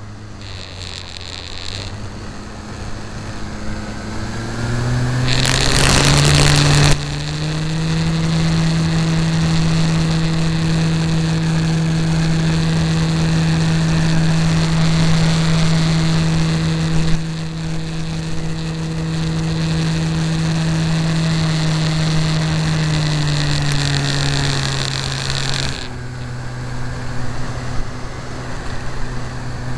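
Radio-controlled model aircraft engine running, its pitch rising over a few seconds as it is throttled up, holding steady for a long stretch, then dropping back to a lower steady speed near the end. A loud rush of noise cuts across it for a second or two, about five seconds in.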